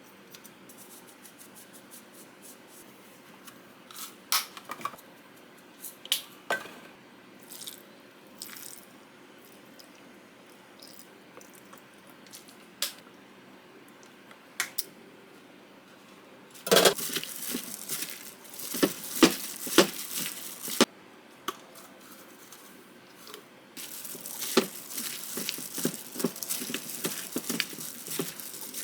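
Kitchen cooking sounds: scattered light clicks and knocks of utensils and dishes, then a loud burst of sizzling about halfway through, and a steady sizzling and crackling of food frying in a pan for the last few seconds.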